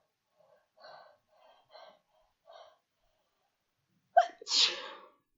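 A woman's induced sneeze. A few faint short breaths come first, then near the end one loud sneeze: a sharp catch followed by a burst lasting nearly a second.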